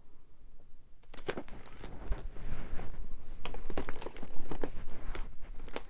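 Clear plastic snap-button envelopes and cellophane packaging crinkling and rustling as they are handled, starting about a second in, with many small irregular crackles.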